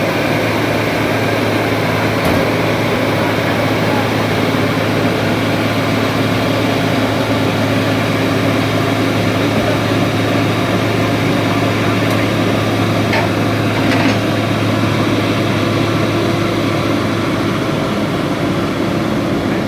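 Excavator's diesel engine running steadily at a constant pitch, with a couple of faint clicks a little past the middle.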